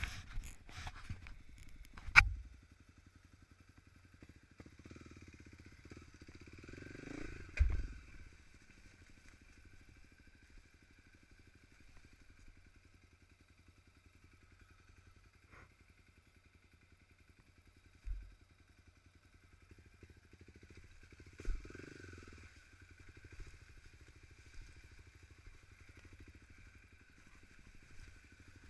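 Motorcycle engine running at low speed, swelling twice as the throttle opens. Several sharp knocks and thumps from the bike jolting over rough trail ground.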